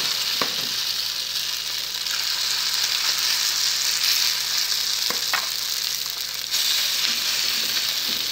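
Grated potato and egg batter sizzling steadily in hot margarine in a frying pan, with a few short scrapes of a utensil as the batter is spread out, once near the start and twice about five seconds in.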